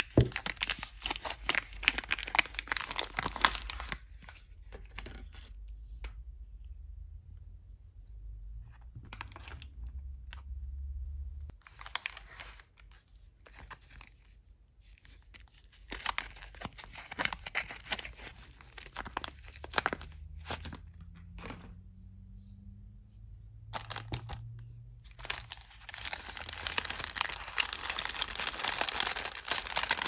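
Paper soap wrappers being torn open and crinkled by hand, in bursts of rustling and tearing with short pauses between. Near the end a brown kraft-paper wrap is unfolded, and the crinkling gets louder.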